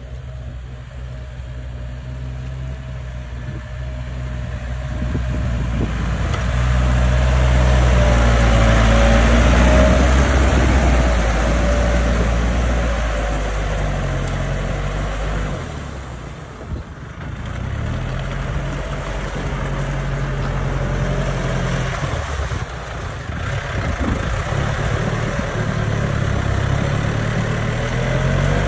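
Yanmar 72-horsepower tractor's diesel engine running steadily as it pulls a disc plough through a flooded paddy. It grows louder as the tractor comes close, about a quarter to halfway through, then drops briefly and settles again.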